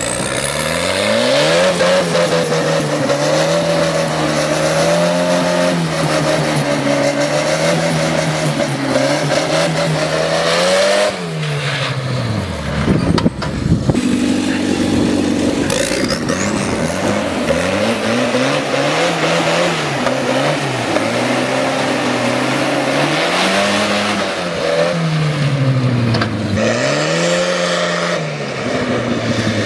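Modified orange tractor's engine run hard at speed, its pitch climbing and then dropping again and again as it accelerates through the gears, over a steady rush of noise.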